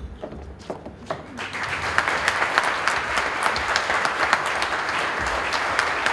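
Audience applauding: a few scattered claps at first, then the applause swells about a second and a half in and holds steady.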